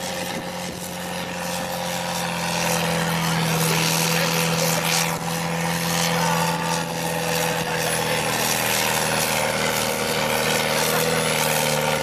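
Ford 5000 tractor's diesel engine running hard and steady under load while dragging a weight-transfer pulling sled. Its pitch sags slightly partway through and climbs again near the end.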